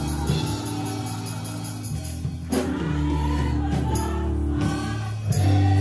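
Gospel choir singing into microphones. The music thins out about two and a half seconds in, then comes back fuller and louder just before the end.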